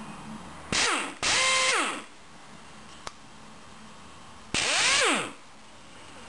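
Snap-on half-inch drive air impact wrench spinning free with no load, triggered in three bursts: a short blip, a longer run, then another run about three seconds later. Each burst is a hiss of air with a whine that rises as it spins up, holds steady, and falls away as the trigger is released; a single click sounds between the runs.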